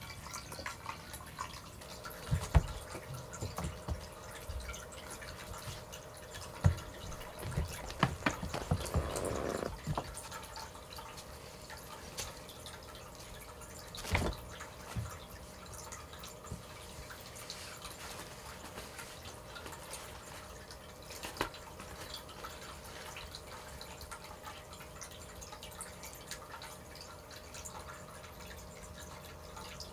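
Pet drinking fountain trickling and dripping steadily, with a faint steady hum under it. A few soft knocks and thumps stand out, most of them in the first ten seconds.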